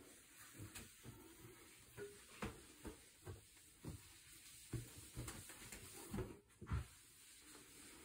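Microfibre cloth wiping and drying a quartz countertop, faint, with a series of soft, irregular thumps.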